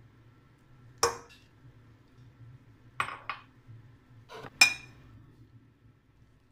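Glass bowl knocking against the rim of a patterned mixing bowl: sharp clinks with a short ring, once about a second in, twice around three seconds, and twice more near four and a half seconds. The last clink is the loudest.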